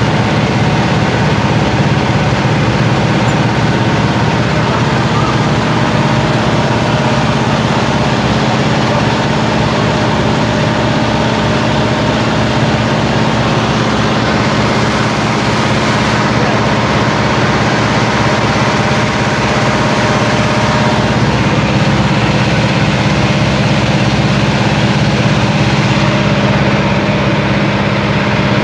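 River boat's engine running steadily close by, a loud, even, fast-beating drone with no change in speed.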